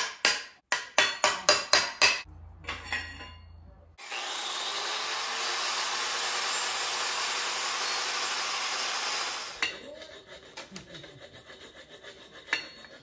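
A quick run of sharp knocks, about four a second, for the first two seconds. Then, about four seconds in, an angle grinder runs steadily for about five and a half seconds, deburring a jet-ski jet pump. Light scrapes and clicks follow.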